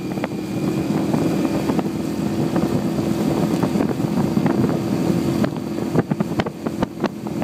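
Outboard motor of a motorboat running at a steady pace, with a few sharp clicks about two-thirds of the way through.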